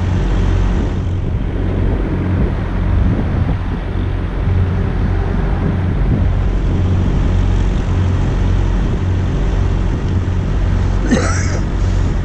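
A vehicle engine running steadily with a low, even hum, over a wash of traffic noise.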